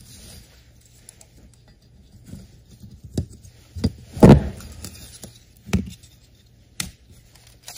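Scattered clicks and knocks of a small plastic cooling fan and a metal fan platform being handled and fitted together on a carpeted bench, the loudest knock about four seconds in.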